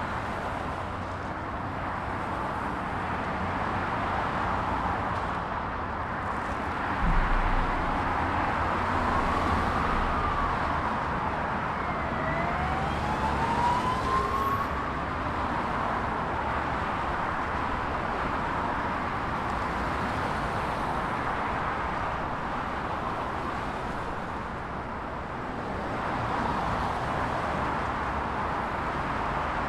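Dense motorway traffic at close range: a steady rush of tyres and engines from many cars passing. About seven seconds in, a heavy low thud stands out, and between about nine and fifteen seconds a whine rises and falls twice, like a distant siren.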